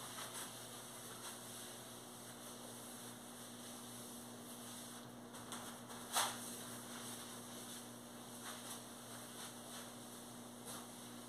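Faint rubbing of a paper napkin wiped over mirror glass, with one short, sharp squeak or tap about six seconds in, over a steady low hum.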